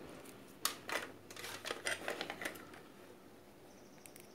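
A quick, irregular run of light clicks and small knocks lasting about two seconds, starting just under a second in: the CRT TV chassis board's aluminium heatsink being moved and multimeter test leads being handled.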